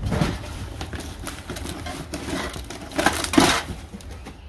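Hands rummaging through a box of small household items: irregular rustling and crinkling with light knocks, loudest at the start and again about three seconds in.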